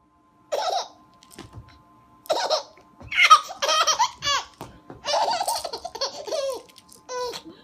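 A baby laughing in several high-pitched bouts with short breaks between them.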